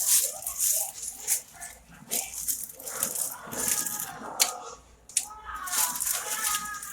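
Irregular rattling and clinking from kitchen items being handled, with a sharp click about four and a half seconds in.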